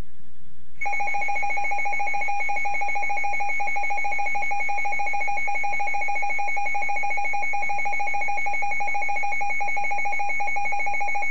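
Emergency alert attention tone: one loud, steady electronic tone of a single pitch. It starts about a second in and holds unbroken, signalling that a weather warning bulletin is about to be read.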